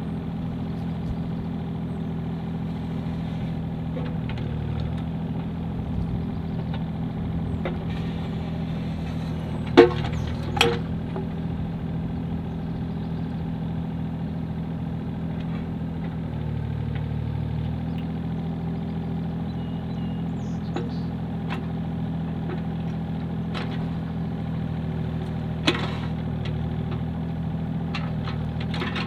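Komatsu mini excavator's diesel engine running steadily as the operator works the bucket, its note dipping and changing briefly about two-thirds of the way through. A few sharp knocks stand out, two close together near the middle and one more near the end.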